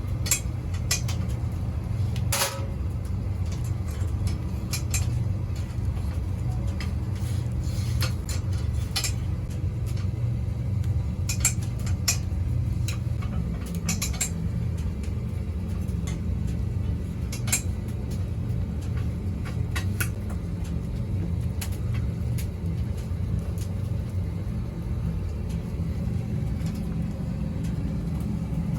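Steady low machine hum with scattered sharp clicks and clinks; the hum deepens slightly about halfway through.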